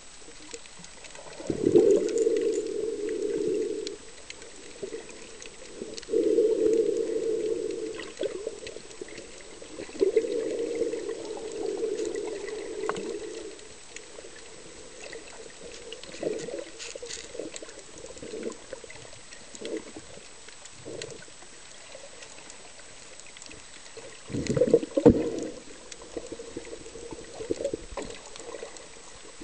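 A scuba diver's exhaled bubbles streaming from the regulator, recorded underwater: three long bubbling bursts a few seconds apart, then a quieter stretch with small scattered sounds, and another short burst of bubbles near the end.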